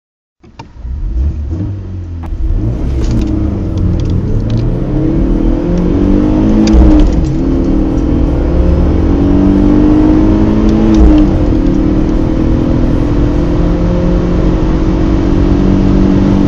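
Two four-cylinder car engines, a BMW 318i E46 and a Mercedes A 250 W176, accelerating hard from a standstill, heard together. The engine pitch climbs and drops back at each gear change. The sound starts about half a second in.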